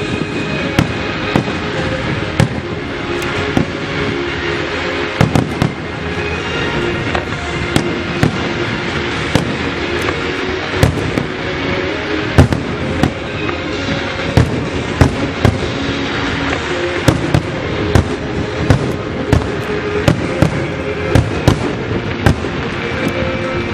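Aerial fireworks display: shells bursting in a rapid, irregular run of sharp bangs, dozens of them, over a continuous crackle.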